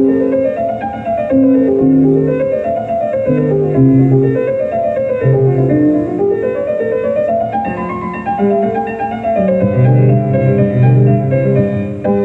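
Instrumental background music: runs of notes that climb and fall every couple of seconds over slower, lower notes.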